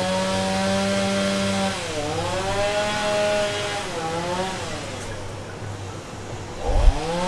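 A small engine running steadily, chainsaw-like, its pitch dipping and recovering about every two seconds, with a low thump near the end.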